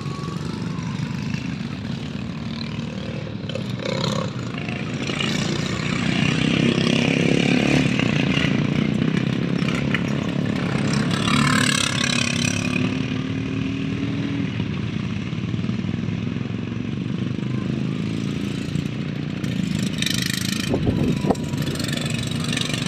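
Racing lawnmower engines running steadily, louder from about six seconds in.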